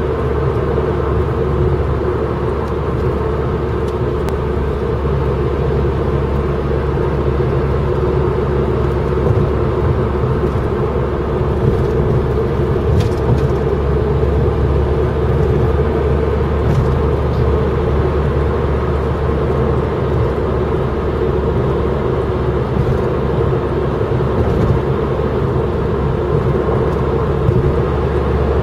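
Steady road noise of vehicles travelling at speed: a continuous engine and tyre drone with a low rumble and no sudden events.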